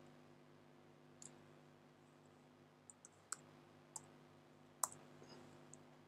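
Faint computer mouse clicks, about seven scattered sharp clicks, over a low steady hum.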